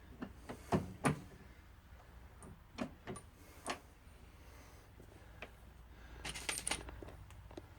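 Sharp metallic clicks and clinks from handling brass rifle cases and reloading gear during case sizing and primer seating. Two loud clicks come about a second in, a few single ones follow, and a quick jangling cluster comes near the end.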